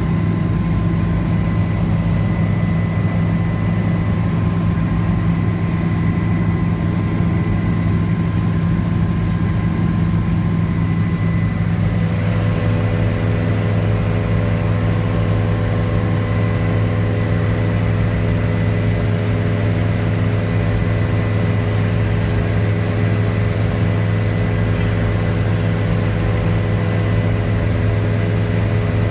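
Helicopter in flight, heard inside the cabin: a loud, steady drone of rotor and engine with a thin, steady high whine. About twelve seconds in, a few more steady tones join the drone.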